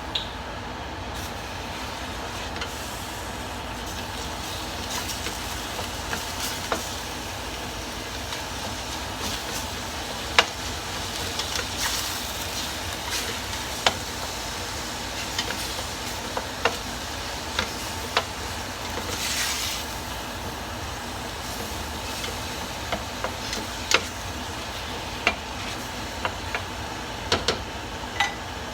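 Ground beef frying in an oiled pan: a steady sizzle, broken by frequent short clicks and taps of a utensil against the pan.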